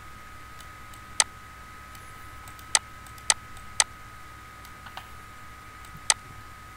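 Computer mouse clicking: about five sharp, separate clicks spread irregularly over several seconds, with a couple of fainter ones between them, over a faint steady high whine.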